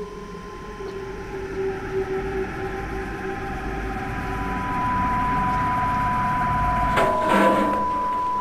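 Horror-film sound effects: a low rumbling drone that swells over the first five seconds, under a steady high ringing tone that grows much louder near the end, with a brief harsher burst about seven seconds in.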